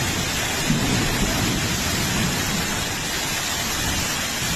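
Heavy rain mixed with hail pelting down in a strong storm: a dense, steady hiss.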